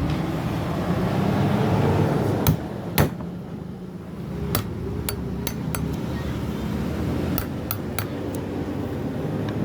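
A chisel being struck into solid wood with sharp, irregular hammer blows, about a dozen in all, some in quick runs of three or four. A steady low rumble runs underneath.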